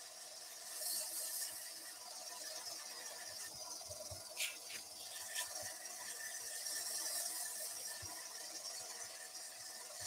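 Abrasive paper held against a small wooden workpiece spinning on a wood lathe, a steady hiss of sanding over the lathe's faint steady whine, with a few light ticks a little before the middle.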